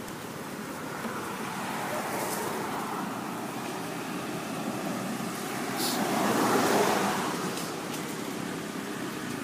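A motor vehicle passing on a nearby road, its steady rushing noise growing and then swelling to its loudest about six to seven seconds in before fading back.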